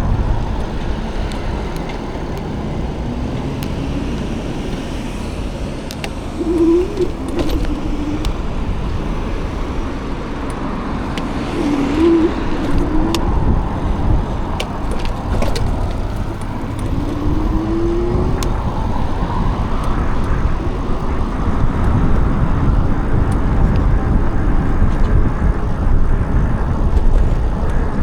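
Road and traffic noise with wind rumbling on the microphone while riding an e-bike. Three brief wavering whines come at intervals.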